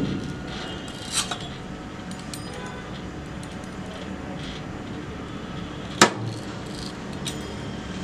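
Light metallic clicks and taps from a fluted pastry wheel cutter being worked over dough on a board, with a sharp click about six seconds in and a smaller one just after a second in, over a steady low hum.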